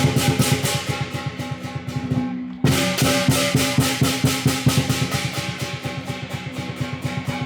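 Lion dance percussion: a drum beaten in rapid, even strokes with cymbals clashing over it. About two seconds in a drum roll dies away, then the full ensemble crashes back in sharply and keeps up the fast beat.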